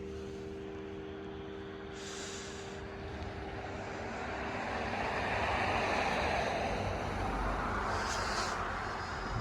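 The hum of a church bell dies away over the first few seconds. Then a vehicle passes by, its road noise swelling to a peak around the middle and fading again.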